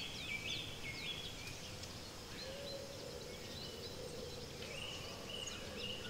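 Faint forest ambience: birds calling in short repeated notes over a steady hiss, with a low wavering call joining about two seconds in.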